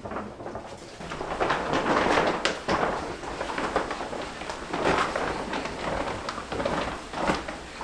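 A large plastic kimchi mat rustling and crackling as it is gathered up and handled, with irregular crinkles throughout.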